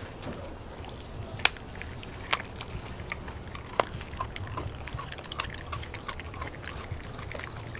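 Pit bull chewing a raw meal of chicken and raw egg with crushed shell: steady chewing with many small crunches and three loud sharp cracks, about one and a half, two and a half and four seconds in.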